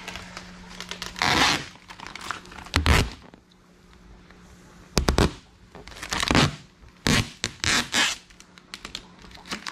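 Adhesive vinyl wrap film being peeled away from a boat hull in about six short pulls, each a brief rip, with a pause partway through.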